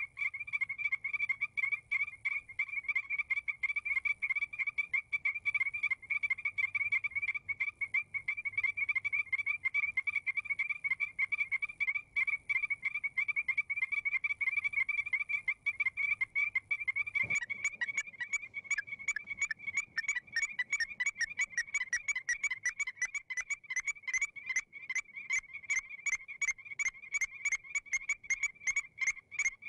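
A chorus of Strecker's chorus frogs: many high, whistled notes repeated rapidly over and over, the frogs calling back and forth to each other. About 17 seconds in, a low background hum stops and the notes become sharper and brighter.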